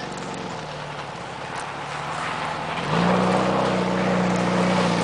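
1973 Volkswagen Bus's air-cooled flat-four engine running under load while driving over dirt, with wind and tyre noise. About three seconds in, the engine note gets louder and slightly higher as it pulls harder.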